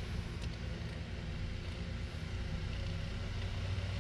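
Small oscillating electric fan running steadily close by: an even whir of air over a low hum.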